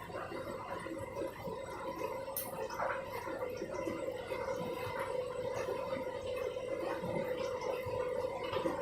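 Candy washing machine running a rinse and spin programme: a steady motor whine, with water gurgling and sloshing and small irregular clicks throughout.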